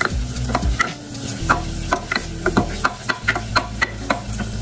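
Wooden spoon stirring briskly in a stainless steel saucepan, knocking and scraping against the pan's sides and bottom in quick, irregular taps, with a light sizzle from the butter mixture cooking.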